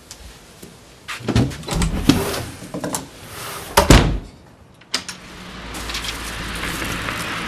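Door handled and shut: a run of knocks and clatter ending in a heavy thud just under four seconds in. Then a steady low hum with hiss that swells from about five seconds on.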